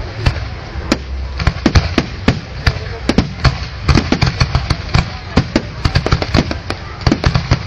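Fireworks display: rapid, irregular sharp bangs, several a second, over a continuous low rumble of further explosions.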